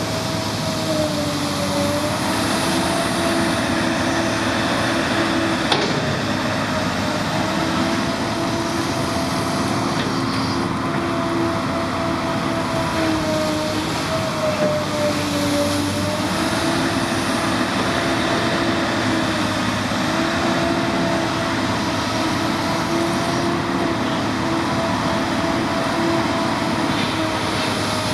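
An excavator's diesel engine running steadily, its drone sagging briefly in pitch every few seconds, with one sharp knock about six seconds in.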